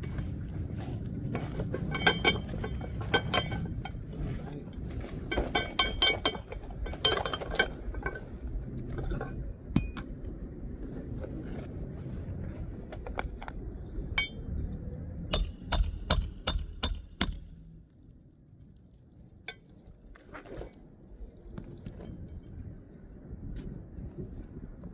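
Hammer striking a roof snake, a steel tool that drives roofing nails under a shingle tab, in clusters of ringing metal-on-metal taps as the nails go into the new shingle. About two-thirds through comes a quick run of about seven strikes, with a few lighter taps after.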